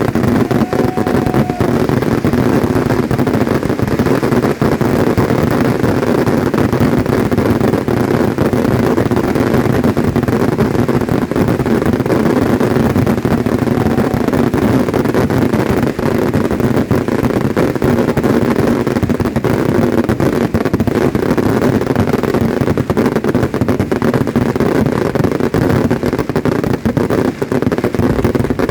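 Fireworks firing in a dense, unbroken barrage, countless overlapping bangs and crackles merging into a continuous rumble. A short whistle sounds about a second in.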